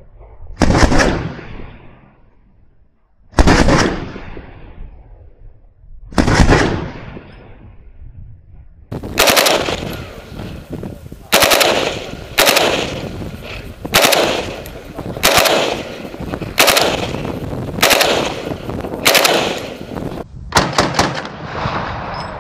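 Gunshots from a VULKAN-M bullpup AK-pattern rifle: three shots a few seconds apart, then a steady string of about ten shots roughly a second apart, ending in a quick cluster. Each shot has a trailing echo.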